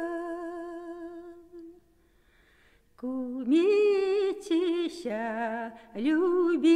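Unaccompanied female voice singing a Russian folk song. A long held note fades away, there is about a second of near silence, then the voice comes back with wavering, ornamented phrases.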